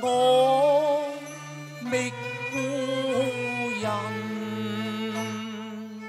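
Cantonese operatic song music: a wavering, sustained melody line over held low bass notes that change every second or two.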